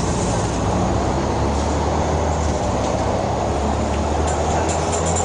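A Volvo city bus's diesel engine running with a steady low drone.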